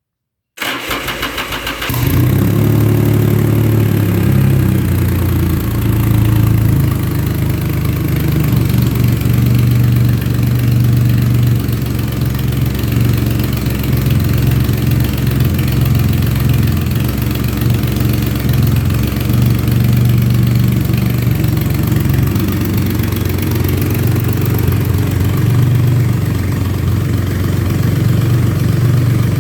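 2005 Triumph Rocket III's 2.3-litre inline three-cylinder engine on a cold start: the starter cranks briefly, the engine catches about two seconds in, and it settles into a steady idle.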